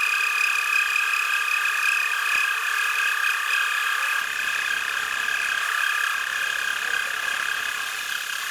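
Metal lathe running and taking a light skim cut of about two thousandths of an inch across an electric motor's rotor: a steady high whine made of several held tones.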